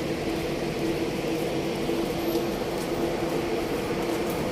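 Steady mechanical hum holding one constant pitch, over an even wash of background noise.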